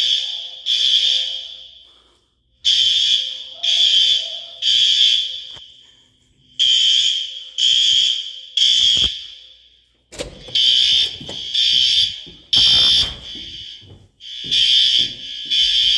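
Building fire alarm sounding the three-beep evacuation pattern: three loud high beeps about half a second apart, a pause of about a second, then again, each beep trailing off in echo. A few low knocks come in the second half.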